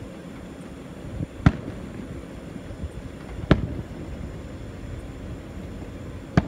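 Aerial firework shells bursting: sharp booms about two seconds apart, the last a quick double report near the end, over a steady low background noise.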